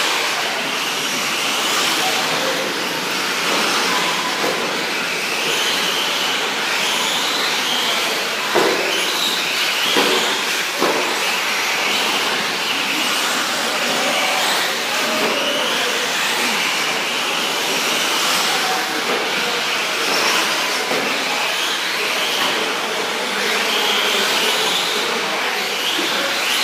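Several 1/10-scale electric 4WD short course RC trucks racing on a dirt track: electric motors whining up and down in pitch as they accelerate and brake, over the hiss of tyres on dirt. A few sharp knocks about a third of the way in.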